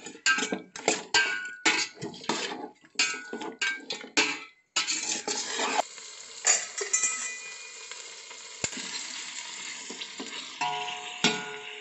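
A metal spatula stirring chicken pieces with garlic and ginger paste in hot oil in a steel pot, with quick scraping strokes against the pan over the sizzle of the frying meat. About halfway through the strokes thin out and a steady sizzle carries on, with a few more strokes near the end.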